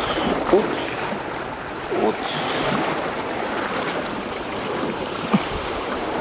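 Sea waves washing against a concrete tetrapod breakwater, with wind noise on the microphone, and a few brief sharp sounds spread through it.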